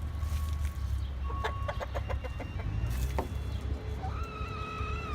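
Chickens clucking in a quick run of short clucks, then a rooster crowing about four seconds in, a long call held and slowly falling at its end, over a steady low rumble.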